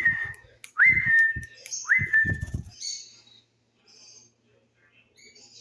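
A short whistled call, rising and then holding steady, given three times about a second apart, as used to train young parrots. Faint high chirps from the young birds follow.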